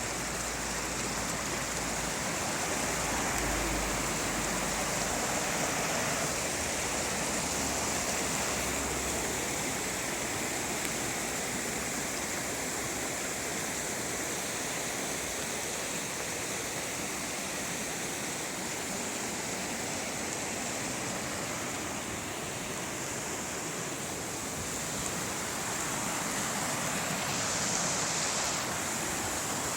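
Rushing river water making a steady, full hiss that holds through the whole stretch.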